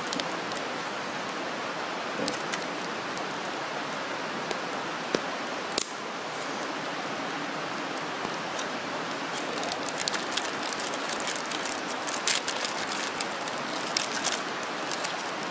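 Steady outdoor rushing noise, with scattered sharp crinkles and clicks of a food packet's wrapper being worked open by hand, growing busier over the second half.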